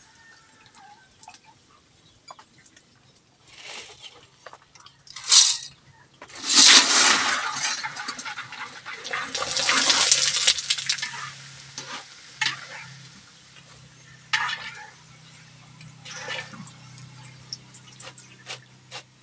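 Macaroni pieces deep-frying in hot oil in a wok: the oil sizzles loudly for several seconds from about six seconds in, then dies down, as the batch puffs up. Sharp clinks of a metal strainer against the wok come throughout.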